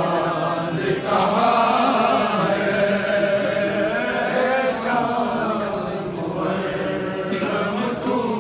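A group of men chanting an Urdu nauha (Muharram mourning lament) together, many voices overlapping in long held lines.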